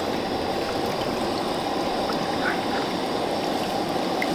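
Butter and flour roux cooking in a pot over the heat, left to brown: a steady low rushing with a few faint small pops.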